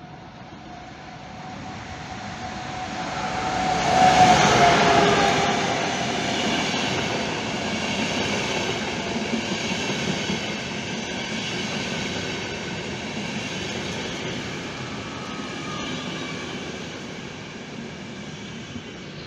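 Siemens Vectron electric locomotive hauling a passenger train through a station at speed. It is loudest as the locomotive passes about four seconds in, its whine dropping in pitch. The coaches then roll by with a steady rumble and light wheel clicks that slowly fade.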